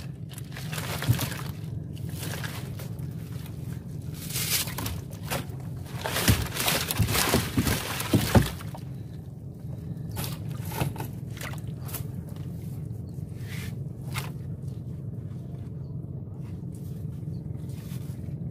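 Wet fishing net being hauled by hand over the side of a wooden boat: netting rustling and scraping against the hull in quick clusters, busiest in the first half, then only the odd stroke. A steady low hum runs under it all.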